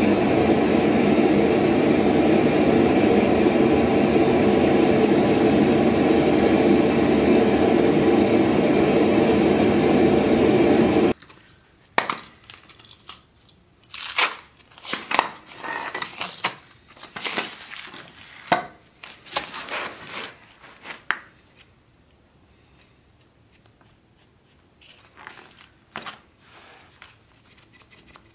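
A gas burner roars steadily and loud, then cuts off suddenly about eleven seconds in. After that come scattered clinks and scrapes of a metal mold box being handled, with duct tape torn off it, then a quiet stretch and a few more clatters near the end.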